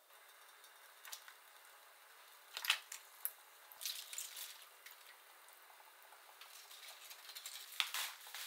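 Quiet home-kitchen food-prep sounds: a few light knocks, clinks and rustles scattered through, with a short water sound at the sink near the end.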